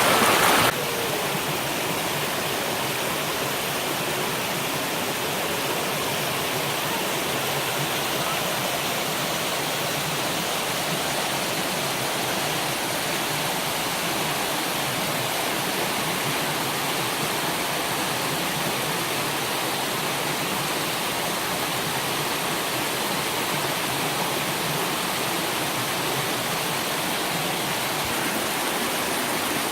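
Waterfall rushing steadily over rocks: an even, dense hiss of falling and splashing water. It is louder for the first moment, then settles to a steady level just under a second in.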